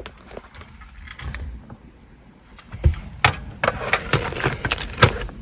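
Hard parts clicking and rattling as a car stereo's metal mounting brackets and head unit are handled and tried against the dash opening. A few light clicks come first, then a busier run of sharp knocks and rattles from about three seconds in.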